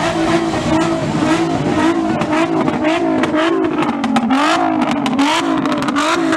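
Nissan 350Z's 3.5-litre V6 held high and blipped on the throttle over and over, the revs rising and falling about twice a second, as the car rolls close past.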